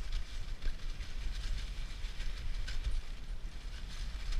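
Dog sled running along a packed snow trail: runners hissing and the sled frame rattling over the bumps, under a heavy low rumble of wind and jolting on the microphone.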